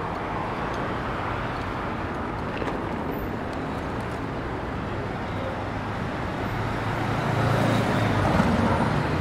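City street ambience: steady traffic noise from cars and scooters, with the low rumble of passing vehicles getting louder about seven seconds in.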